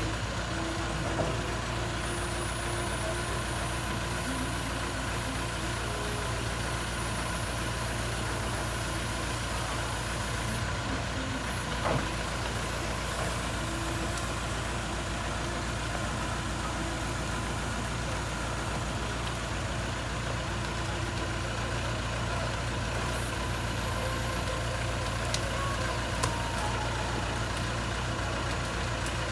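JCB 3CX backhoe loader's diesel engine running steadily at low revs, with a few light knocks now and then.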